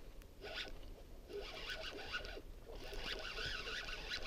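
Fishing reel being cranked to retrieve line, in several spells of about half a second to a second with short pauses between them.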